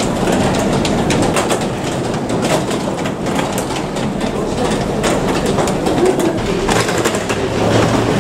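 Rolling suitcase wheels clattering over a tiled floor, a steady rumbling rattle full of fast small clicks, with footsteps.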